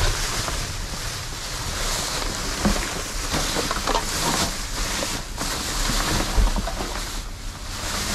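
Wind rumbling on the microphone, with plastic trash bags and rubbish rustling and crackling irregularly as a dumpster is searched by hand.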